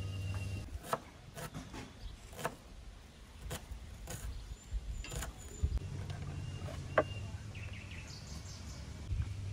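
Kitchen knife knocking against a wooden cutting board while slicing red onion, a handful of sharp, irregular knocks. Faint bird chirps sound in the background.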